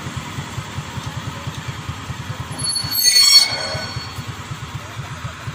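Yanmar YH850 combine harvester's diesel engine running with a rapid, even pulse as the machine travels on its crawler tracks. A brief high-pitched squeal cuts in about three seconds in.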